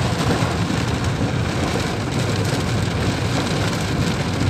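Torrential rain falling heavily on a car and the flooded road, heard from inside the car, with a steady low rumble from the vehicle underneath.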